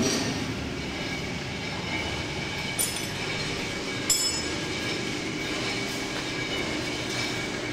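Heavy-duty paver colour mixer running empty, its 5 HP electric motor driving the paddles through a belt and gearbox: a steady mechanical running sound with a high whine. Two short metallic clinks come about three and four seconds in.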